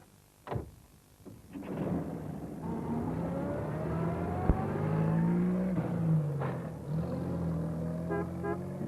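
A small van's engine running and pulling away, rising in pitch as it accelerates, with a dip and pick-up in pitch later on, like a gear change. A short knock comes about half a second in, before the engine builds.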